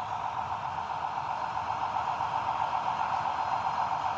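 An engine running steadily at idle, with a fine, even pulsing.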